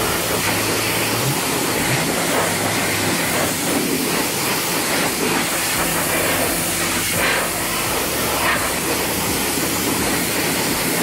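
Pressure washer jet spraying water onto a car wheel and tyre at close range: a loud, steady hiss of water striking and splashing off the wheel, rinsing it off at the end of the wheel wash.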